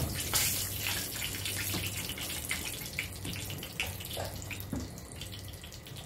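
A large pot of beans at a rolling boil, with a steady bubbling hiss, being stirred with a wooden spoon that gives a few light knocks.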